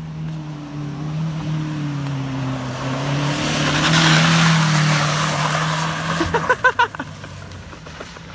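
Old Toyota's engine running hard at a steady pitch as it drives off road, with a rush of tyre and terrain noise that builds to its loudest about four seconds in. The engine sound drops away about six seconds in.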